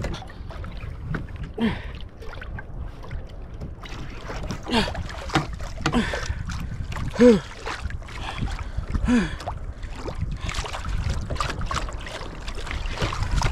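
Wind and water rumbling on the microphone of a kayak at sea, with a man's short grunts every couple of seconds, the loudest about halfway through, as he strains against a large fish on the rod.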